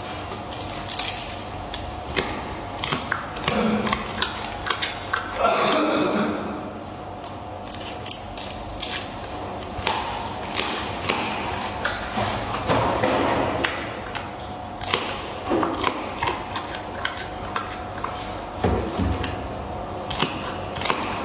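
Giant panda chewing bamboo stalks: irregular sharp crunches and snaps, sometimes several in quick succession, with a few longer crunching stretches.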